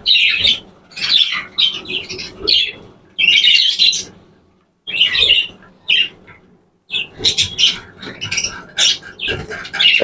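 A flock of budgerigars in a wire cage squawking and chattering in short, high-pitched bursts, with two brief lulls about halfway through.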